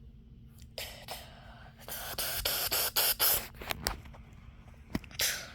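Bursts of scratchy, rustling noise made of many short strokes, loudest for about a second and a half in the middle, followed by a few sharp clicks and one more short burst near the end.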